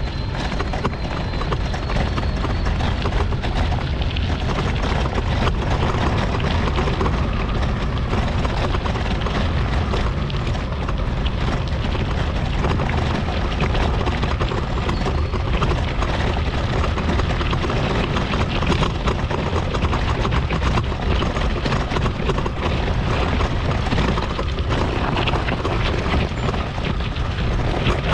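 Steady low rumble and rattle, with many small knocks, of a mobility scooter rolling over a rough path.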